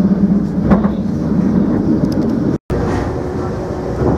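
Narrow-gauge electric railcar of the Tatra Electric Railway running, heard from inside the passenger car: a steady rumble with a low hum. About two and a half seconds in it drops out for a moment, then comes back as a lighter rumble.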